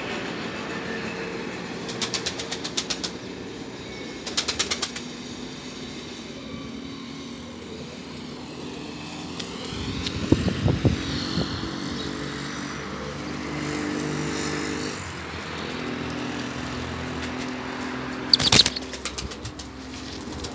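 Kirkukli pigeons' wings flapping in three short rapid bursts, over a steady hum of road traffic.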